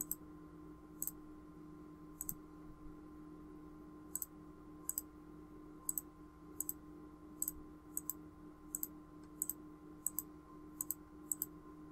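Computer mouse clicking: sharp, faint clicks, several in quick pairs. They come about once a second at first and about every half second from about four seconds in, over a faint steady electrical hum.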